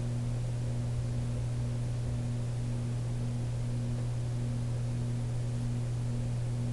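Steady low electrical hum with a faint hiss underneath, the background noise of the recording with nothing else happening.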